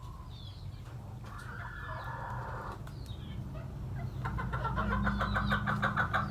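Chicken calling: one drawn-out call about a second in, then fast repeated clucking, about six or seven a second, from about four seconds in, over a low steady rumble.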